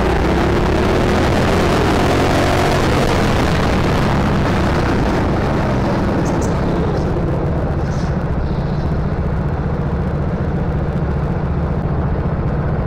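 Rental go-kart's engine, heard from the driver's seat, running at racing speed with wind and track noise; from about halfway it eases off and the hiss fades as the kart slows under a red flag.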